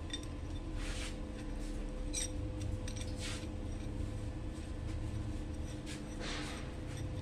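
A few brief metallic clicks and clinks as a short length of motorcycle roller chain is handled against a threaded steel rod, over a steady low hum.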